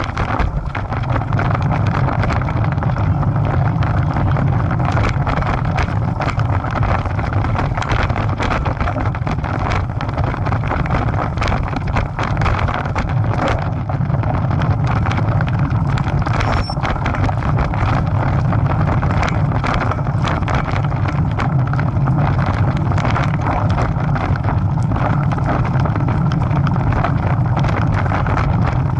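Steady wind noise buffeting the microphone of a bicycle-mounted camera while riding, with frequent small knocks and rattles as the bike rolls over a rough dirt trail.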